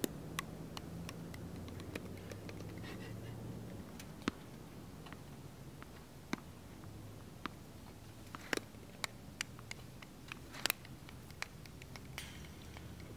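Faint steady background with a dozen or so scattered sharp taps and clicks, several close together between about eight and eleven seconds in.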